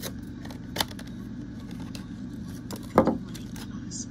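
Clear plastic blister packs of diecast toy cars being handled, giving a few sharp plastic clicks and knocks, the loudest about three seconds in, over a steady low hum.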